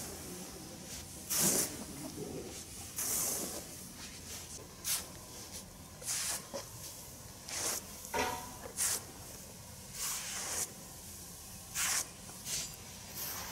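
Hands sweeping and tossing a heap of dry concentrate feed (wheat bran, rice polish and gram husk) across a concrete floor as it is mixed, giving about ten brief swishing rustles of dry particles, one every second or so.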